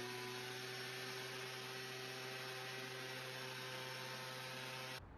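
A steady low electrical hum with several overtones, cutting off suddenly near the end.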